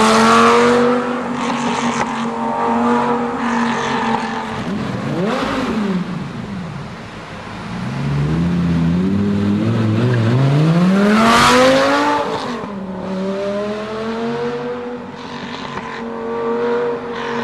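Lamborghini Gallardo Spyder's V10 engine and exhaust running. It holds a steady drone, blips up and back about five seconds in, then climbs to a loud high rev about eleven seconds in before dropping back to the steady note.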